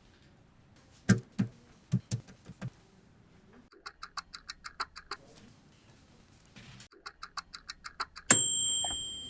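A few hard knocks, then the quick, even clicking of a mechanical kitchen timer dial being turned, twice, and finally one loud bell ding that rings on and fades out.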